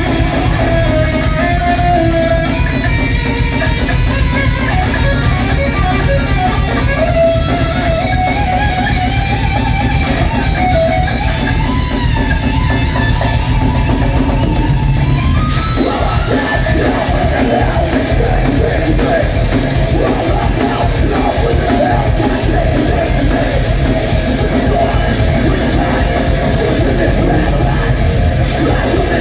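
Loud rock band playing, guitar-led in a heavy style: a single melodic line glides up and down over bass and drums through the first half, then the band shifts to a denser, fuller passage about halfway through.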